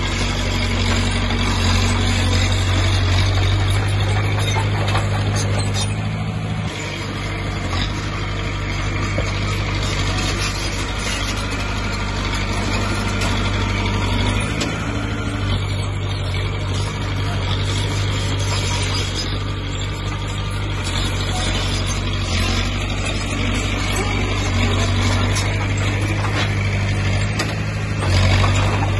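Komatsu D20P bulldozer's diesel engine running steadily, its level dipping about a quarter of the way in and swelling briefly near the end.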